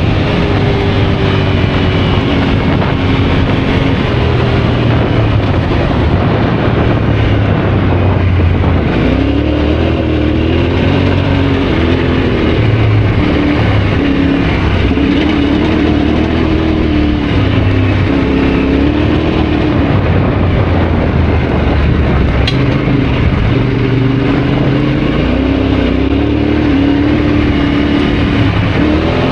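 Yamaha Ténéré adventure motorcycle engine running under way, its pitch rising and falling as the throttle is opened and eased, over steady wind and road noise.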